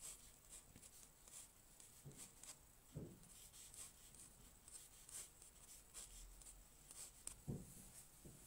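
Faint, quick scratching strokes of a pen on watercolour paper as a sketch is finished roughly, with a soft knock about three seconds in and another near the end.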